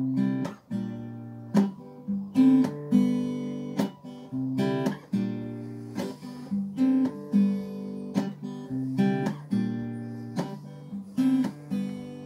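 Acoustic guitar strumming chords in a repeating rhythm, each chord ringing on until the next stroke.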